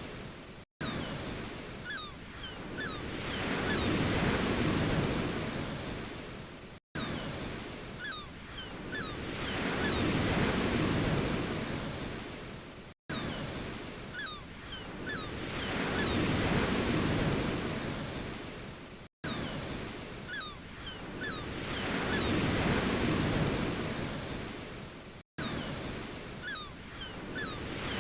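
Ocean waves washing in and falling back, each surge swelling and fading over about six seconds. Between surges the sound cuts out to silence for an instant, where a short recording loops. A few faint, short, high chirps come in each surge.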